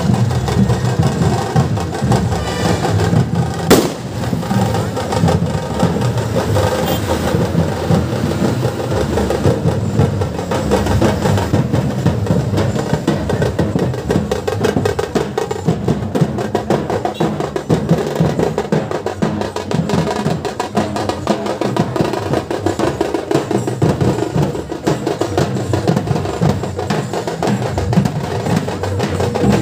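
Processional drumming: fast, dense percussion played steadily on the move, with one sharp crack about four seconds in.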